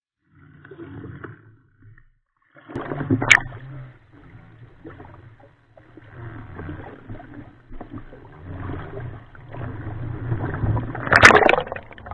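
Sea water sloshing and splashing around a camera bobbing at the surface, with a sharp splash about three seconds in and a louder one near the end as the camera dips under.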